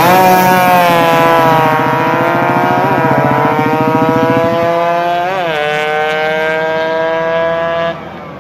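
Two-stroke 115 cc race motorcycle engine screaming at high revs as it accelerates out of a corner and away down the straight. The pitch drifts slowly down and twice dips and climbs again at gear changes, about three and five seconds in, then the sound cuts off abruptly near the end.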